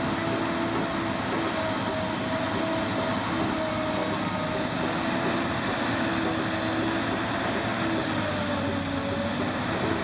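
Diesel engine of a three-axle all-terrain mobile crane running as the crane drives slowly, a steady mechanical noise with a whine that wavers slightly in pitch.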